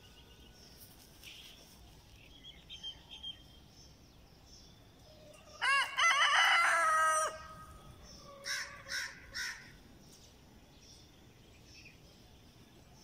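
A rooster crows once about six seconds in, a short first note then a long held one; about a second later come three short calls, and a few faint chirps sound a few seconds before the crow.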